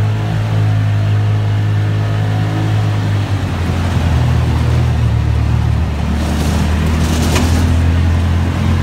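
Vehicle engine running steadily under way, heard from inside the cab as a low hum. The engine note changes about three seconds in, and there is a short burst of higher noise about seven seconds in.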